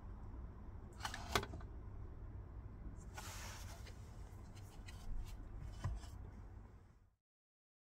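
A few light clicks and a short rustle of handling over a low steady hum, fading out to silence near the end.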